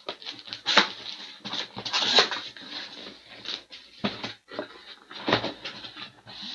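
Cardboard shipping case being opened and handled, with the boxes inside it: repeated rustling and scraping of cardboard on cardboard, with short knocks.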